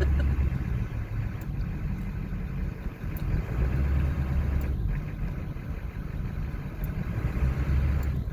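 Truck engine idling and creeping along at low speed, a steady low rumble heard from inside the cab.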